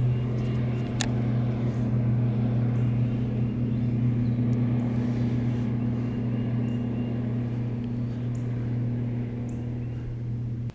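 Steady low motor hum holding one even pitch, cutting off suddenly at the end, with a single sharp click about a second in.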